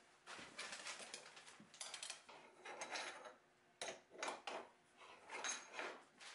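A string of short scrapes and clinks from a bit change at a router table: the insert ring is lifted out and set down on the table top, and an open-end wrench is fitted onto the router's collet nut.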